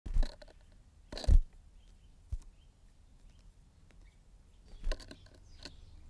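Two loud thumps close together in the first second and a half, then a sharp tick, with a few faint short bird chirps in between. Near the end come light clicks and taps on the wooden feeder as a blue tit lands on it.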